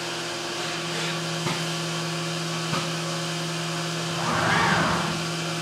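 Haas UMC 750 SS five-axis CNC mill cutting aluminum with an end mill under flood coolant: a steady machine hum under a hiss of coolant spray, with a couple of light ticks. The noise swells louder for about a second, four to five seconds in.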